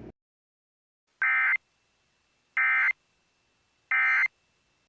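Emergency Alert System SAME end-of-message data bursts: three short, buzzy digital warbles about 1.3 seconds apart, signalling the end of the alert.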